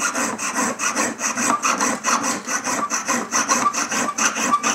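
Jeweller's piercing saw cutting through a metal ring blank, taking off the surplus to size the ring. Quick, even back-and-forth rasping strokes, several a second.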